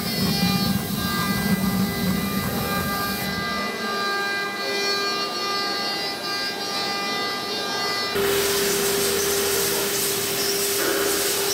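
Two-spindle CNC router cutting wood: the spindles keep up a steady high whine while the bits rasp through the wooden door panel. The sound changes abruptly a little over three seconds in and again about eight seconds in.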